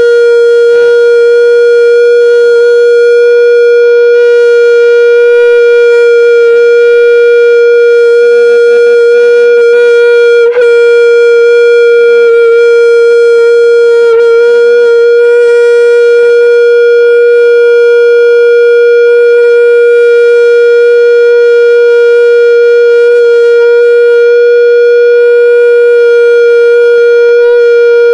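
One loud, steady tone at a single unchanging pitch, carried over the stage PA and held without any break, with a brief catch about ten seconds in.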